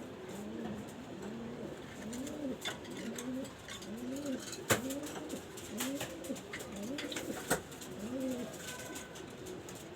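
Pigeon cooing: a steady string of short, low coos that rise and fall, a little more than one a second, with two sharp clicks near the middle.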